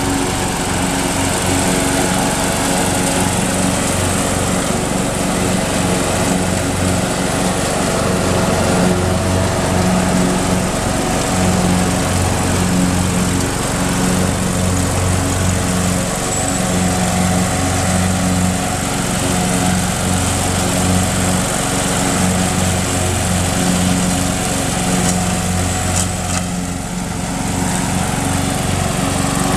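MTD riding lawn mower's engine running steadily as the mower drives across the lawn, its level dipping briefly near the end.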